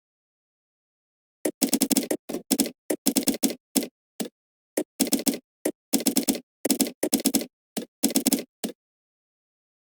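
Typing on a computer keyboard: quick bursts of keystrokes separated by short pauses, starting about a second and a half in and stopping shortly before the end.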